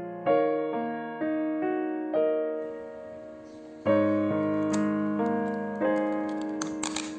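Background piano music: slow single notes and chords struck about once a second, each ringing out and fading. A few faint clicks come near the end.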